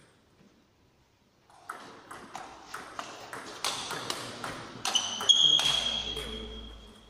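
Table tennis rally: the celluloid-type ball clicking off bats and table in quick alternation, about three hits a second, growing louder. A steady high ringing tone joins for the last two seconds.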